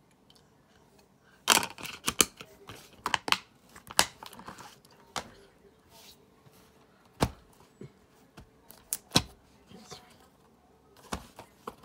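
Plastic DVD cases being handled: an irregular string of sharp clicks and knocks as a disc is fitted into its case and cases are closed and picked up.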